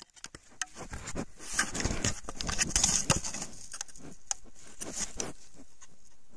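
American black bear nosing and rubbing against a trail camera: irregular scraping, rubbing and knocking on the camera body, loudest between about one and three seconds in, then dying down.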